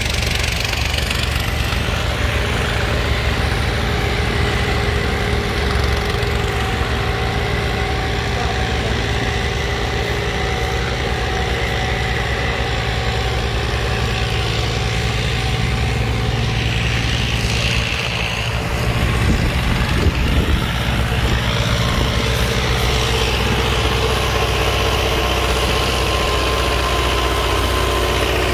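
Farmtrac 6060 tractor's diesel engine running steadily under heavy load as it pulls two disc harrows through the soil. It dips briefly about two-thirds of the way through, then comes back a little louder.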